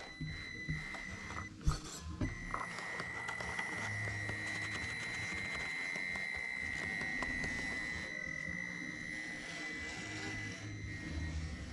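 Traxxas TRX4m RC crawler's electric motor and geared drivetrain whining as the truck crawls slowly over rocks: a steady high tone that sets in about two seconds in. A few sharp knocks come before it.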